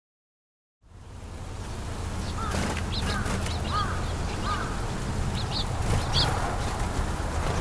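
After a moment of silence, an outdoor recording fades in with a steady low rumble. Over it come short chirping bird calls: a handful of arched chirps, then a few brief higher notes.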